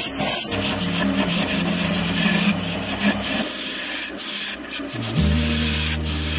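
Turning tool cutting into a spinning wooden blank on a wood lathe: a continuous scraping hiss of wood being shaved. Background music with low held notes plays along, louder from about five seconds in.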